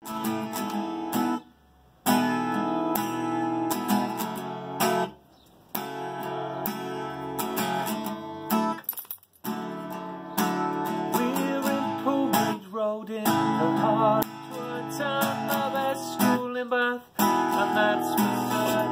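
Steel-string acoustic guitar strummed in chords, a rhythmic song introduction broken by a few short pauses.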